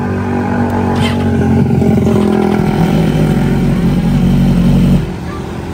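BMW S1000RR superbike's 999 cc inline-four revved hard through its exhaust while the bike stands still: the revs climb over the first second or so, are held high and loud, then drop away sharply about five seconds in as the throttle is let go.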